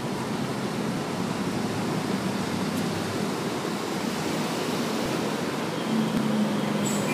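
Steady roar of city road traffic, with cars and motorbikes passing below. A faint low hum rises near the end.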